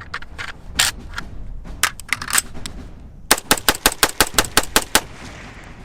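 AR pistol gunfire: several separate shots, then rapid semi-automatic fire, a quick even string of about a dozen shots in under two seconds.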